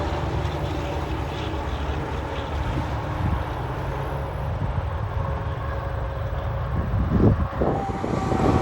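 Heavy diesel truck running with a steady low rumble. About seven and a half seconds in, a steady high tone starts and holds.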